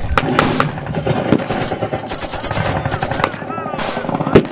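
Gunfire from blank-firing weapons: many scattered shots at uneven intervals, with no steady rhythm.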